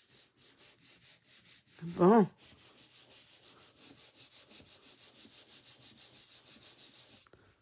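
Palms rubbing quickly back and forth over a sheet of card stock, about four to five even strokes a second, pressing freshly glued paper layers flat.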